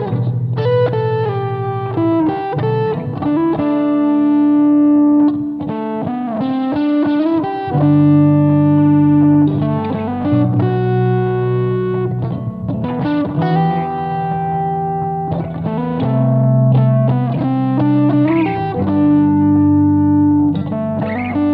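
Instrumental electric guitar music: a lead guitar line of long held notes and quicker runs over a sustained low accompaniment.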